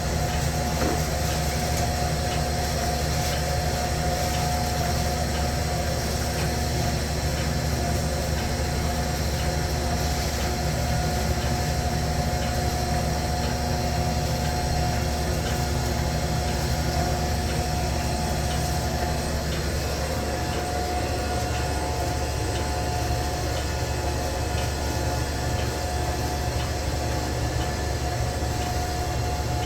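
Shinpung SP-630 rice cake forming machine running steadily while it makes mosi songpyeon, wrapping filling in thin dough: an even machine hum with a steady mid-pitched tone and faint regular ticks.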